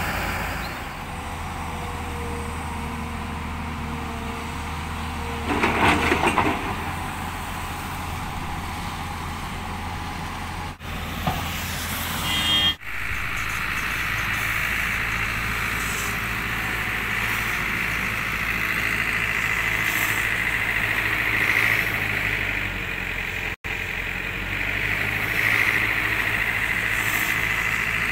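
Heavy diesel engine idling steadily, with a short loud clatter about six seconds in and a steady higher whine over the second half; the sound drops out briefly a few times.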